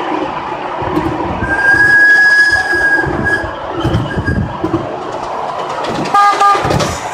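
5-inch gauge miniature railway train rolling along the track, its wheels knocking unevenly over the rail joints. A thin, steady high squeal runs for over a second about a second and a half in, and a short, loud stacked tone sounds about six seconds in.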